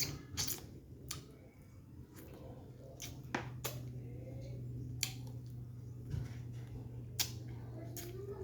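Close-up eating sounds: chewing with wet lip smacks and scattered sharp mouth clicks, over a steady low hum.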